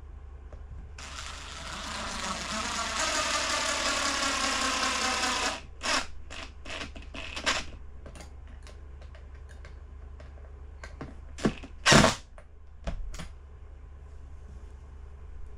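Power drill running for about four seconds, its pitch rising slowly as it drives a screw to mount a window-blind bracket. Then comes a series of clicks and knocks as the hardware is handled, with one loud knock about twelve seconds in.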